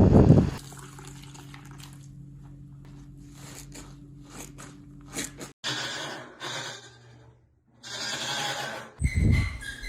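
Washing machine running: a quiet steady hum with light ticks that cuts off abruptly about halfway through. Short bursts of rushing, water-like noise follow, with a brief silence between them.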